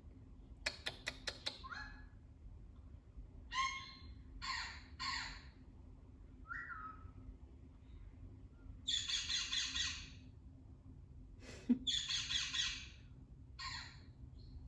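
Ringneck parakeet calling: a string of short harsh squawks, with two longer harsh squawks about nine and twelve seconds in. A quick run of clicks comes about a second in.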